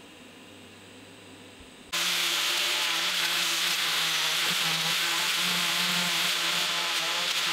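Angle grinder with an abrasive disc sanding a steel plate, a loud steady whir and grind that starts abruptly about two seconds in, after a faint steady hum.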